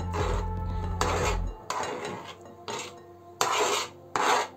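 Mashed banana being scraped off a plastic cutting board into a glass bowl: a series of short scraping strokes, the later ones separated by brief pauses. A low hum stops about a second and a half in.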